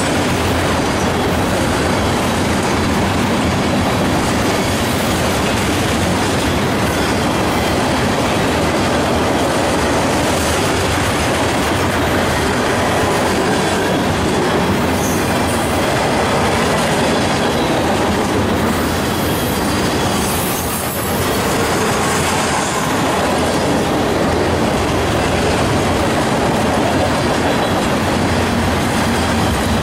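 Freight train of tank cars rolling past at close range: a steady, loud noise of steel wheels running on the rails, easing slightly about two-thirds of the way through, with a few brief high squeals.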